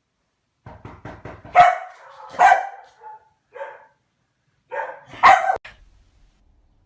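A dog barking several times in short, separate barks, with a pause of about a second between most of them.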